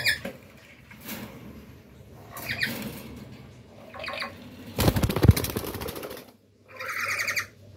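Black-capped lories in a wire aviary giving short, harsh, pulsed squawks, with a loud burst of wing flapping and commotion about five seconds in as a gloved hand reaches into the cage; a longer rattling squawk follows near the end.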